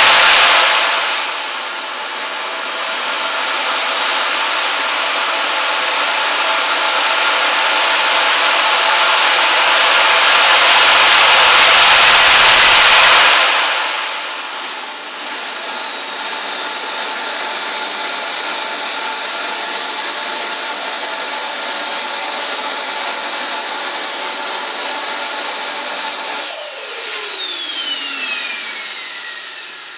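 JetCat P120 model jet turbine (33 lb thrust) running with a high-pitched whine and jet roar. It is throttled up over about ten seconds to its loudest, highest whine, and cut back to a steady idle about 14 seconds in. Around 26 seconds in it is shut off and spools down, the whine falling steadily as it fades.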